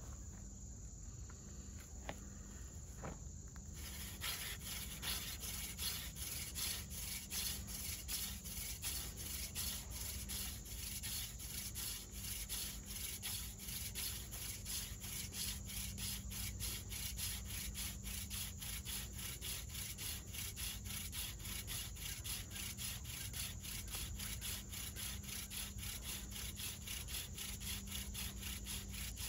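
Horseweed spindle spun back and forth between the palms in a water oak fireboard (a friction-fire hand drill), making a rhythmic wooden rubbing that starts about four seconds in and runs on steadily. This is the drilling stage that builds heat and dust toward an ember.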